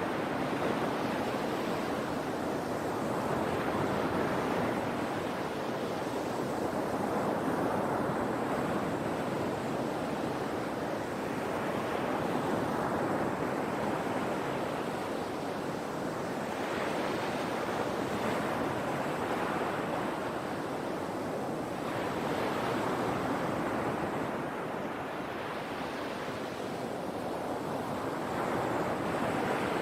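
Sea waves breaking and washing ashore in a continuous rush, swelling with each wave every few seconds.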